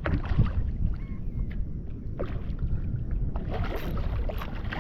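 Wind rumbling on the microphone on a fishing kayak, with a few light knocks and some water noise from handling a just-caught redfish.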